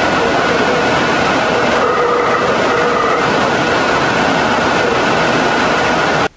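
Loud, steady hiss of a heavily amplified audio recording, with faint held tones buried in it, which the recordists present as an EVP of pig sounds and grunting. It cuts off suddenly near the end.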